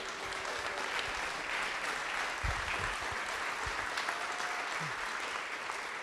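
Audience applauding, a steady wash of clapping that holds at an even level throughout.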